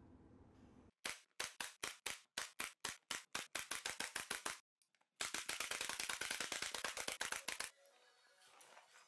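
Pneumatic finish nailer firing a quick run of sharp shots as quarter-round trim is nailed along the baseboard. The shots come about four or five a second and speed up, stop briefly about four and a half seconds in, then resume faster at about ten a second.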